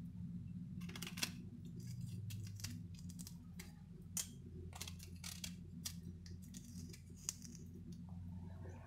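Small knife clicking and scraping against guava slices as it digs out the seeds, in short irregular ticks with a few sharper clicks, over a faint steady low hum.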